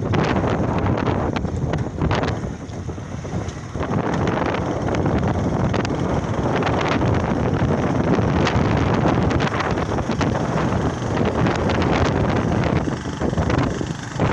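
Wind buffeting the microphone: a steady, loud rumbling rush with gusty flutters, easing briefly a few seconds in.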